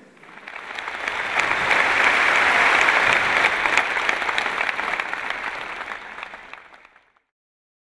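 Large audience applauding, many hands clapping together, swelling over the first couple of seconds and dying away about seven seconds in.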